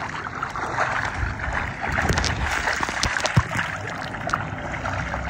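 Swimming-pool water splashing and lapping, with a few sharper splashes near the middle.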